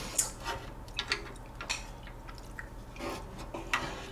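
Scattered light clicks and taps of wooden chopsticks and a wooden ladle against a pot, with soft dripping and sloshing of chicken-soup broth as it is scooped.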